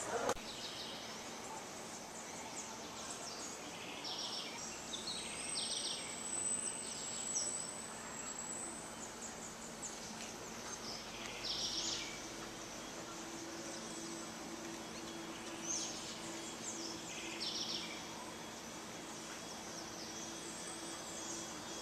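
Outdoor ambience: a steady background noise with short, high bird chirps every few seconds, and a faint steady hum that comes in about halfway.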